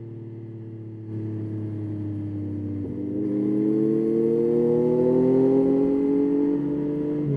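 Yamaha Tracer 9's three-cylinder engine under way. It runs at a fairly even note for the first few seconds, then gets louder about three seconds in and rises steadily in pitch as the bike accelerates, levelling off near the end.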